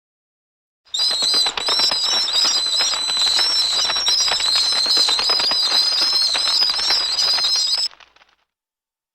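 Bats flying, a dense rapid flutter of wingbeats with high wavering squeaks over it. It starts about a second in and cuts off abruptly near the end.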